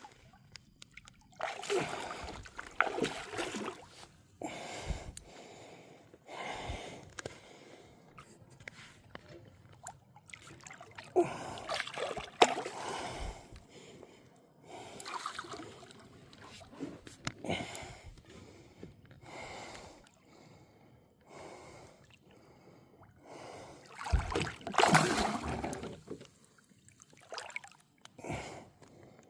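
Irregular bursts of water splashing around a kayak, mixed with gasping, heavy breaths, each burst lasting a second or two.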